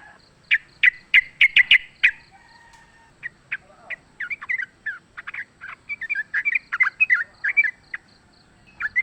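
Yellow-vented bulbul (trucukan) calling: a quick cluster of sharp chips, a short pause, then a fast run of short notes sliding up and down, starting up again near the end.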